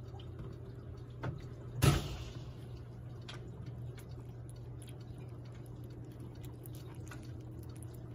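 Orange tabby cat licking paste from a Churu treat tube held to its mouth: a run of small, quick wet licking clicks over a steady low hum, with one loud knock about two seconds in.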